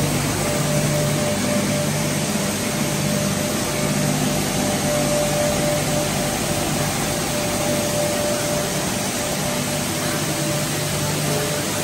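Plastic strand pelletizing line running: a steady rush of air from the vortex-pump strand dryer over a low machine hum, with a faint steady whine.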